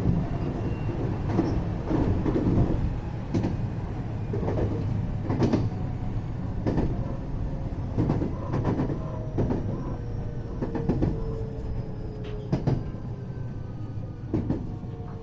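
Interior running sound of a JR-design 521-series electric multiple unit motor car: steady low rumble of wheels on rail with irregular clacks from rail joints. The traction motors' whine glides slowly downward in pitch, a sign of the train slowing.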